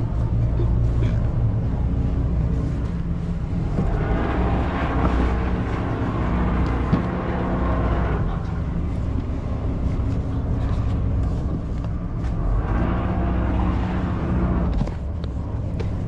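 A motor yacht's engines droning steadily as it gets under way, with rushing wind and water noise that swells and eases, and a light knock about seven seconds in.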